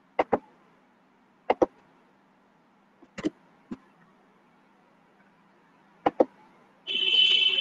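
Computer mouse clicking, heard over the video-call audio as quick pairs of sharp clicks every one to two seconds. Near the end there is a short, louder burst of noise with a high steady tone in it.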